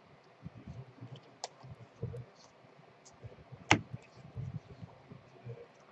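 Baseball trading cards being handled and sorted: scattered soft clicks and taps at an uneven pace, with one sharper snap near the middle.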